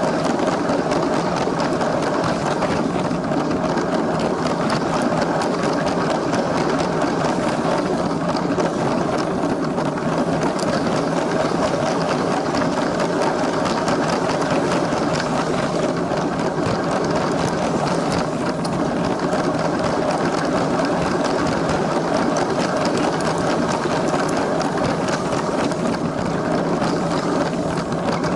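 Small electric LEGO train motor whirring steadily, with the wheels rattling along plastic track, heard from a camera riding on the train.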